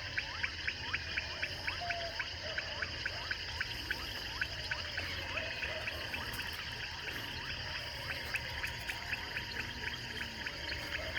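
Unidentified wild animal calls in the brush: a steady rhythm of short pulsed calls, about four a second, with short falling whistle-like notes repeating in the first few seconds, over a continuous insect buzz.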